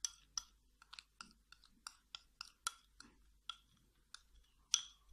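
A utensil clicking and scraping against a glass jar while stirring a thick cream mask: quick irregular clicks, several a second, each with a short glassy ring.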